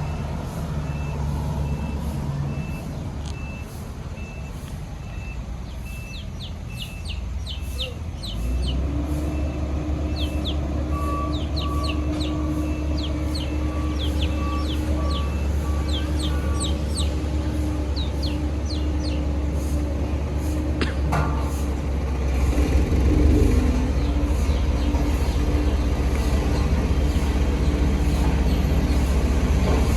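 Heavy diesel road-construction machinery running steadily, with a reversing alarm beeping at a steady pace for the first third. The engine note grows louder about eight seconds in. A second, lower-pitched backup alarm then beeps for several seconds in the middle.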